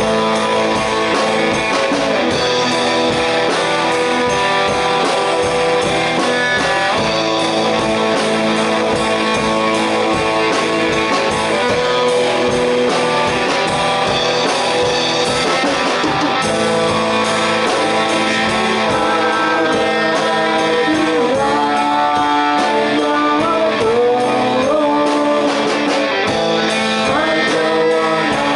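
A rock band playing a song with guitar prominent and a voice singing over it.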